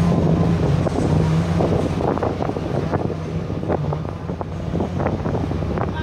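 A ferry's engines running with a steady low drone, with strong wind gusting and buffeting on the microphone and the rush of the churning wake.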